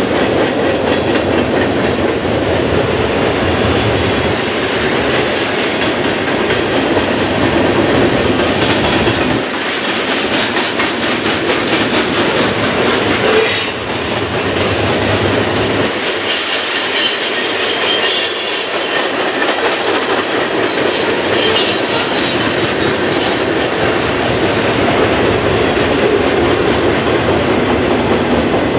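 Freight train cars rolling past: steel wheels clicking over the rail joints in a steady clatter, with a few brief high wheel squeals around the middle.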